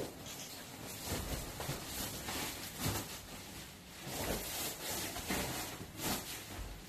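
Disposable protective coverall being pulled on and adjusted: irregular rustling and crinkling of the suit's synthetic fabric, with a sharp click at the very start.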